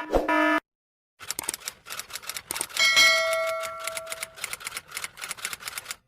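Typewriter sound effect: rapid clacking keystrokes, with the carriage-return bell dinging once about three seconds in and ringing for a second or so. It is preceded by the last half-second of a pulsing buzzer tone.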